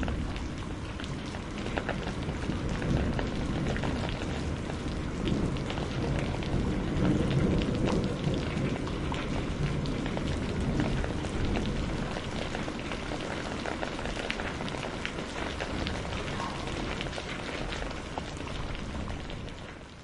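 Steady heavy rain with a patter of individual drops, over a low rolling rumble of distant thunder that swells and eases. The sound fades out at the very end.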